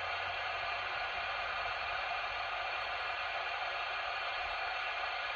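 Steady receiver hiss from a Beta 2100 CB radio's speaker on an empty channel: no station is answering the call.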